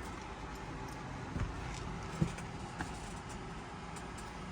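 A steady low rumble with a few soft knocks, the clearest about a second and a half and two seconds in: handling noise from work on a helmet's speaker pads.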